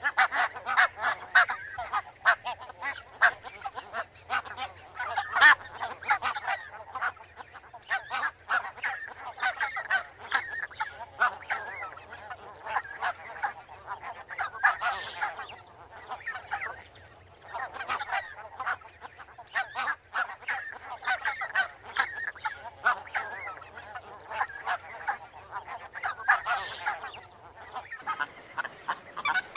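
A flock of barnacle geese calling: many short, overlapping honks in a continuous chatter.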